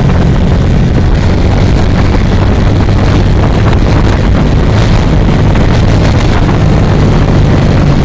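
Motorcycle engine running steadily at road speed with heavy wind buffeting the microphone while riding.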